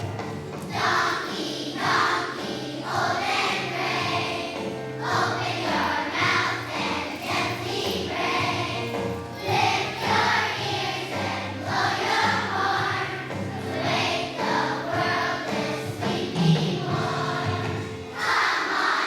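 Children's choir singing a song together over instrumental accompaniment with a moving bass line.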